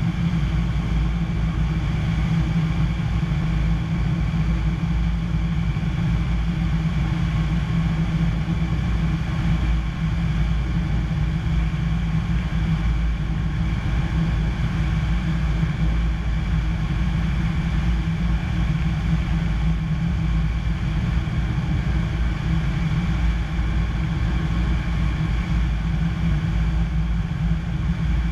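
Piper PA-25-235 Pawnee's six-cylinder Lycoming O-540 engine and propeller running steadily in flight, heard from inside the cockpit.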